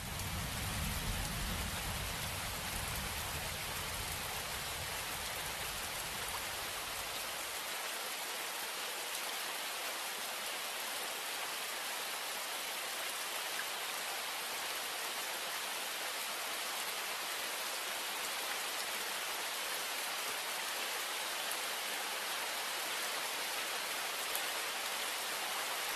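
Steady rain falling on wet pavement, an even hiss, with a low rumble underneath that stops about seven or eight seconds in.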